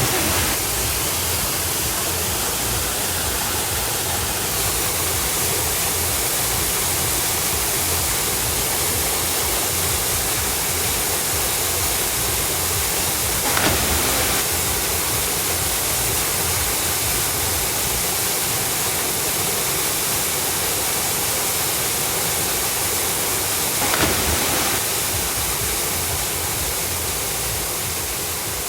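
Waterfall pouring, a steady rushing noise. It grows briefly louder twice, about halfway through and again near the end.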